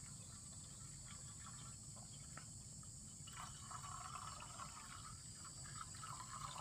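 Faint trickle of a drink poured in a thin stream from a bottle into a shallow steel plate, growing a little fuller about halfway through, over a steady high hiss.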